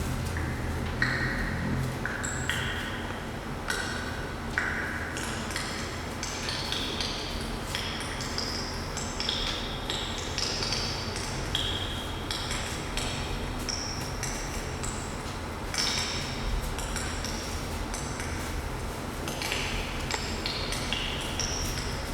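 100,000-year-old ice popping as it melts, its trapped ancient air escaping in quick, irregular high pings that jump about in pitch, over a low steady hum.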